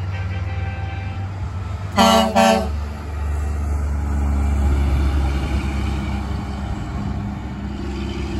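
Grover 2000 (low) and 2001 (high) air horns on a Spartan MM-2242 motorhome chassis sounding together in two short blasts about two seconds in. The horns sound over the motorhome's engine rumble as it drives past.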